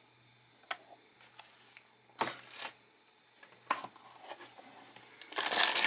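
Soft knocks and rustles of things being handled in a cardboard box, then, about five seconds in, the loud crinkling of a plastic bag holding the cable and rear camera as it is picked up.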